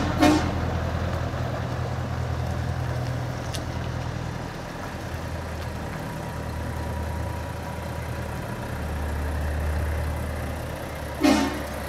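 Heavy truck engines running at low revs, with a short horn toot just after the start and another near the end.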